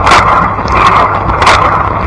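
Blanco dishwasher running its wash cycle: water spraying from the rotating spray arm, a steady rushing hiss with a louder splash twice, near the start and about a second and a half in, as the arm's jet sweeps past.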